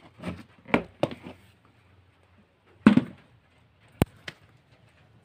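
A cat biting and chewing pieces of luncheon meat held in a hand, heard as a few short, irregular bursts of chewing, the loudest about three seconds in. A single sharp click comes about four seconds in.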